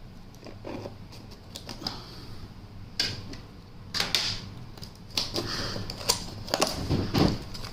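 Laptop box being unpacked: cardboard and packaging handled with irregular clicks, taps and short rustles, busiest in the second half.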